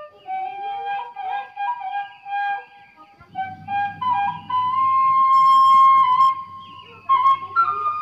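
Flute music: a solo melody of held and sliding notes with quick ornaments. A low steady hum sits beneath it from about three seconds in.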